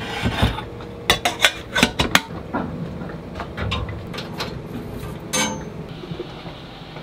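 Stainless steel kettle handled in a boat's galley: a brief rush of water from the tap at the start, then a run of sharp metal clanks and knocks as the kettle is set on the stove, thickest in the first couple of seconds.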